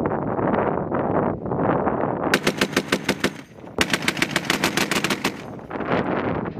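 A belt-fed machine gun fires two bursts at about ten rounds a second: a short one of about a second, then a longer one of about a second and a half.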